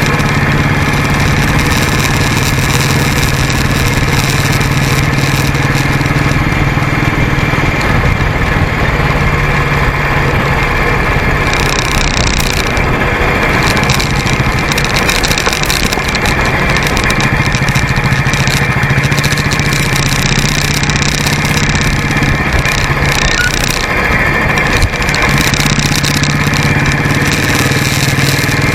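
Motorcycle running steadily on the move: a constant engine drone under dense wind and road noise. For a stretch in the middle the engine note drops back and the road noise takes over, then the engine note returns near the end.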